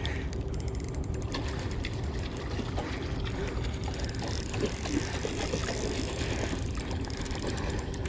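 Fishing reel clicking irregularly as a hooked kingfish is reeled in, over a steady wind rumble on the microphone, with light splashing from the fish at the surface.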